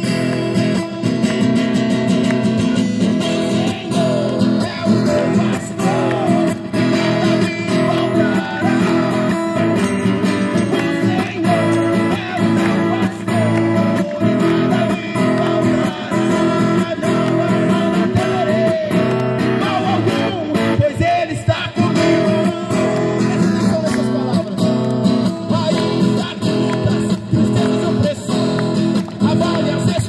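A man singing into a microphone while strumming an acoustic guitar, with the song going on steadily.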